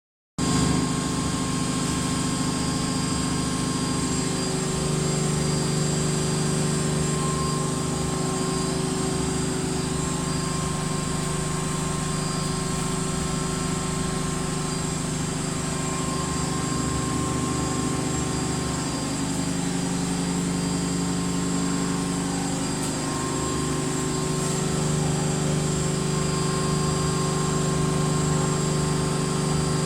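Miele Novotronic W1514 front-loading washing machine in its final high-speed spin, the drum and motor giving a steady whine over a low rumble. The pitch shifts slightly a few times.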